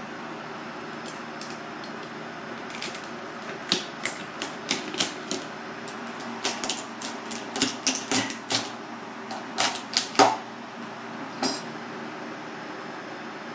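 Irregular sharp taps and cracks as a mud crab's shell is broken open with a knife on a plastic cutting board, thickest and loudest in the middle and latter part.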